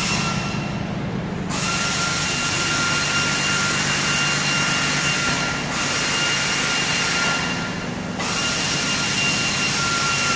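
Steady machine noise: a high whine over a hiss and a low hum. The whine and hiss drop out briefly twice.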